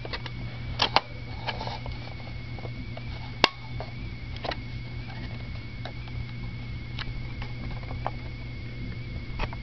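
Scattered light clicks and knocks of hard plastic keyboard parts being handled, with one sharp click about three and a half seconds in. A steady low hum and a faint high tone run underneath.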